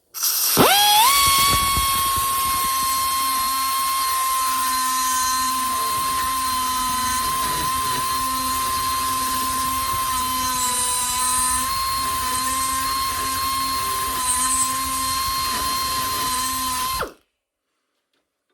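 Die grinder with a small carbide burr spinning up with a rising whine, then holding a steady high whine while the burr grinds away a snapped hardened easy out stuck in a broken stud. It stops abruptly near the end.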